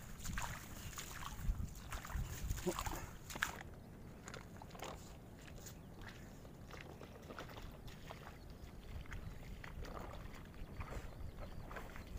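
Feet wading through shallow water, irregular splashing and sloshing steps. They are strongest for the first three or so seconds, drop away, then come back more faintly near the end.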